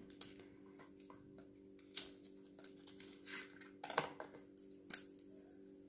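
Small cardboard cosmetic boxes being handled and lifted out of a gift-box tray: soft scrapes and rustles, with a few sharper clicks about two, four and five seconds in, over a steady low hum.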